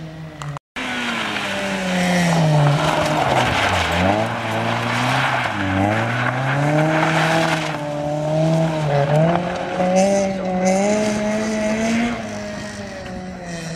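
Honda Civic hatchback rally car's engine revving hard up and down as it slides through a gravel slalom, its pitch dropping sharply twice as the driver lifts and changes gear, with a loud hiss of loose gravel under the tyres.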